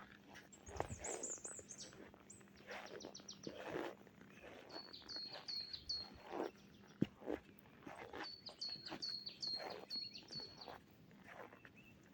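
Small songbirds chirping in the snowy forest: a quick high trill, then runs of short repeated call notes several a second. Under the birds come soft, irregular crunching steps in deep snow, with a single sharp click about seven seconds in.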